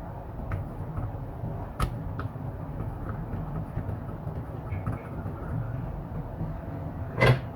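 Steady low hum with a few light clicks and knocks from handling tools at a repair bench; the sharpest click comes about two seconds in and a louder knock near the end.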